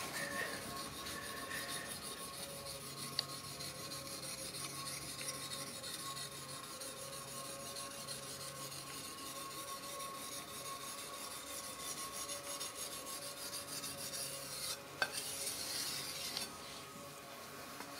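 A hand-held sharpening stone in a wooden holder rubbed quickly back and forth along a steel katana blade: a steady scraping rasp of stone on steel, with a sharp tick about fifteen seconds in.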